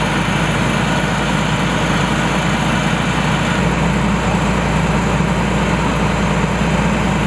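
Diesel railcar engine idling steadily with a low, even drone.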